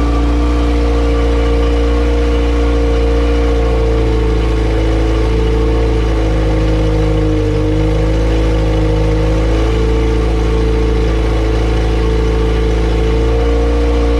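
Honda B18 LS/VTEC four-cylinder running unmuffled on an open header, holding a steady fast idle; the engine speed sags slightly for several seconds mid-way and then climbs back. The idle is still set too high after a throttle-body idle adjustment.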